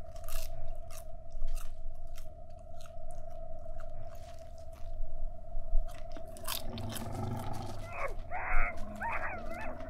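Popcorn being crunched and chewed, short crackles over the first several seconds, over a steady low drone. Wavering high-pitched sounds come in near the end.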